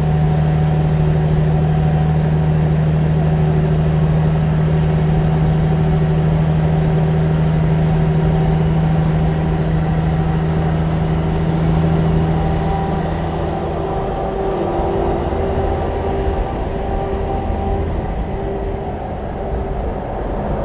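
Peterbilt semi truck's diesel engine and tyres running at highway speed close alongside, a steady low drone over road noise. The drone eases off about two-thirds of the way through as the cab draws away.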